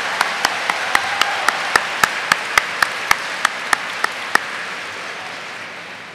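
Audience applauding, with one person's sharp, close claps about four a second standing out over the crowd until about four and a half seconds in; the applause then dies away.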